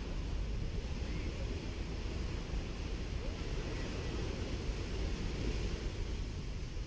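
Gentle Caribbean sea waves washing steadily onto a sandy beach, with a low wind rumble on the microphone.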